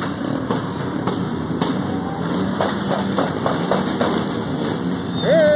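Motorcycle engine running steadily while riding in slow street traffic. About halfway through comes a quick run of knocks, about five a second, and near the end a loud rising call.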